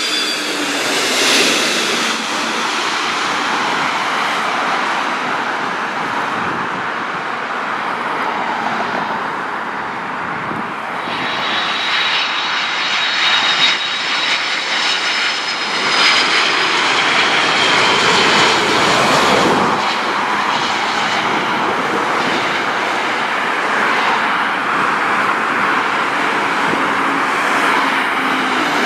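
Jet airliner engines on low final approach passing overhead, a loud continuous rushing noise with a high whine near the start and again from about eleven to sixteen seconds in, as successive aircraft come over.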